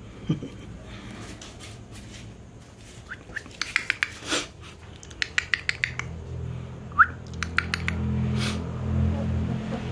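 A small bird chirping: short rising chirps and quick trains of clicking notes in bouts about three, five and seven seconds in. A low hum builds up over the last few seconds.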